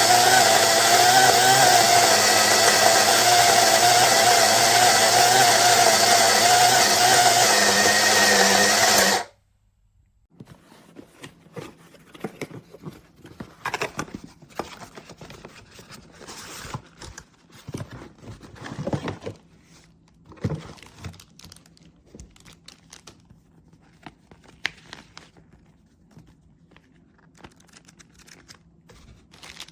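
Electric flat burr coffee grinder motor running loudly with a steady whine, its tone shifting slightly just before it cuts off suddenly about nine seconds in. Afterwards, scattered light clicks and knocks of handling.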